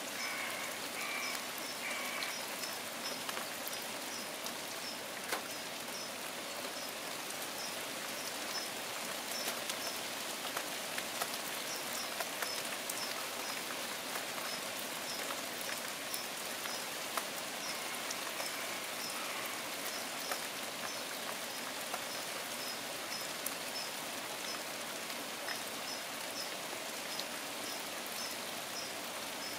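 Steady rain falling on leaves, with single drops ticking sharply now and then.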